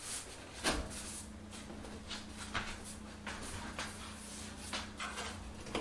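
Black steel stove pipe being handled and slid together by hand: light, irregular scrapes and knocks as the telescoping section is worked into place. A faint steady hum runs underneath.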